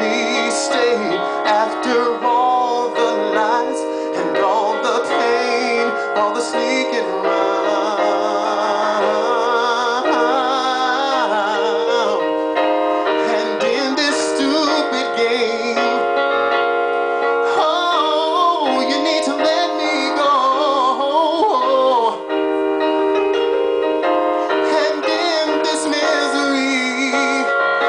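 A man singing a slow song with vibrato into a microphone, accompanying himself with piano-sounding chords on an electronic keyboard.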